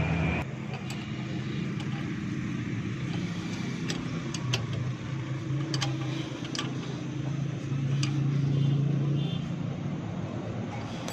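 A vehicle engine running steadily, with scattered sharp metallic clicks and clinks of tools on brake parts being refitted.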